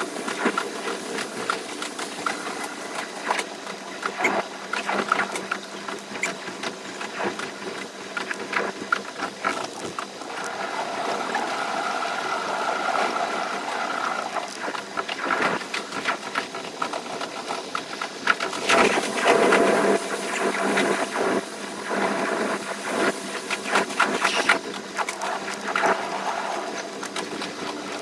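Electric limited express train running: a dense, rapid clatter of wheels over the track over a steady hum, with a whining tone rising out of it for a few seconds in the middle.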